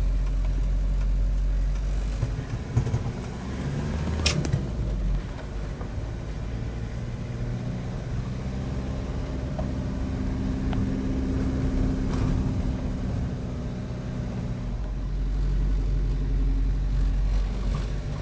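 A car driving along the road: a steady engine hum under a low rumble from the road, with a single sharp click about four seconds in.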